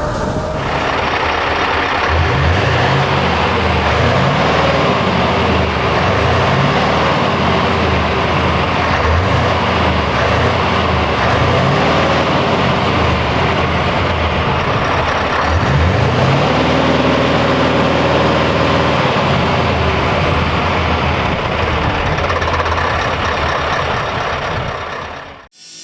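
Stock Scania S650 V8 truck engine running loud and steady, its pitch rising twice as it picks up revs. It breaks off briefly near the end.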